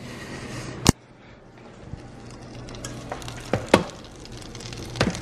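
Butter sizzling steadily in a heated skillet on the stove, with a few sharp clicks, the loudest about a second in.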